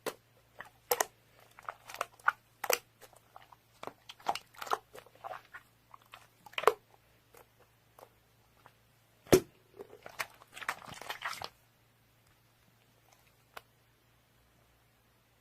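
A person biting and chewing crunchy food: irregular crisp crunches that stop about eleven seconds in.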